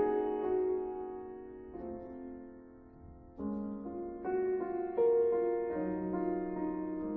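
Background piano music: soft sustained notes and chords that fade to a lull partway through, then new chords come in.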